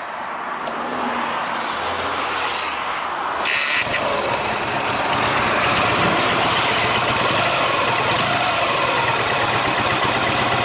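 Ural motorcycle's air-cooled boxer-twin engine being started, catching about three and a half seconds in and then running steadily at idle. It is running hot, with the ringing, clattering noise that the rider suspects comes from overheating.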